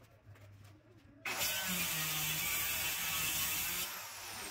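Handheld electric circular saw cutting a plywood panel: it starts suddenly about a second in and runs loud and steady through the cut. Near the end the load drops off and the motor winds down with a falling whine.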